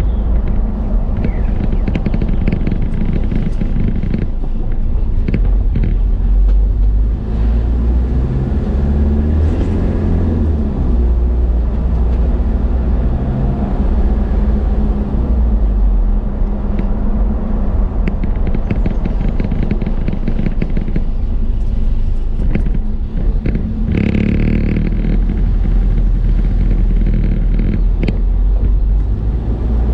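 Car driving at a steady pace, heard from inside the cabin: a steady low rumble of engine and road noise with scattered light rattles and knocks.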